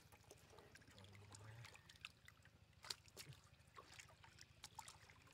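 Faint splashing and sloshing of hands and catfish stirring shallow muddy water, with scattered small drips and clicks and one sharper click about three seconds in.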